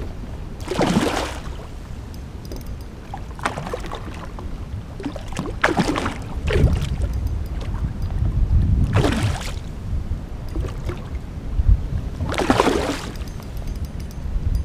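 Water splashing beside a kayak five times in short bursts as a hooked big rainbow trout is fought at the net, over a steady low rumble of wind on the microphone.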